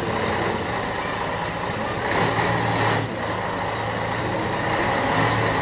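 Scania T113 360 truck's 11-litre straight-six diesel running steadily at low revs, a low hum, as the truck creeps along hauling a diesel locomotive on a low-loader trailer.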